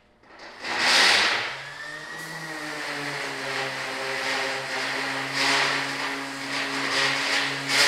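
Small handheld grinder with an abrasive disc starting up, its motor whine rising to speed, then running steadily. Loud hissy bursts come about a second in and again around five and a half seconds as the disc is worked against a small steel part to smooth out scratches.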